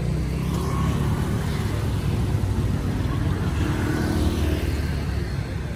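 Street traffic: a car and a motorbike passing close by, their engines running under a steady low rumble.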